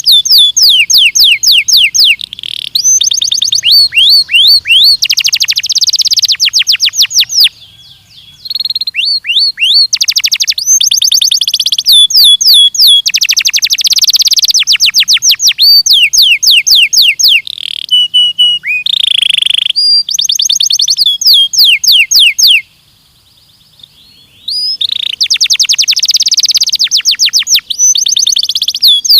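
Belgian canary singing: long runs of fast trills and rapidly repeated chirping notes. The song breaks off briefly about a quarter of the way in, and for nearly two seconds about three quarters of the way in.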